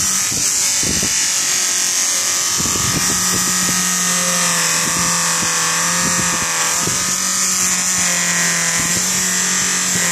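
Bench polishing machine running steadily, its motor humming with a constant high hiss while a stainless steel watch is pressed against the spinning buffing wheel.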